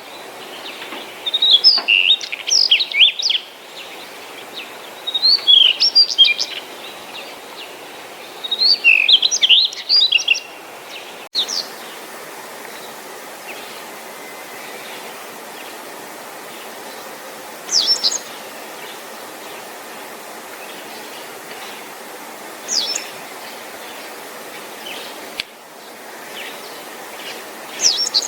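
Wild songbirds in spring woodland. A small songbird sings short warbled phrases, each about a second and a half long, roughly every three and a half seconds. After a break, single brief high calls come about every five seconds over steady faint background noise.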